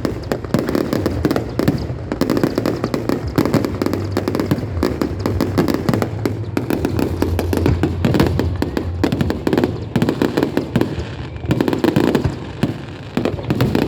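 Fireworks going off in a dense, rapid barrage: many bangs and crackles overlapping continuously, over a low rumble.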